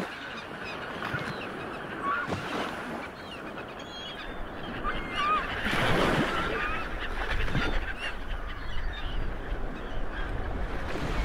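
Birds calling many times in short calls over a steady rush of water and a low rumble, from a large ship's bow wave. The water noise swells about six seconds in.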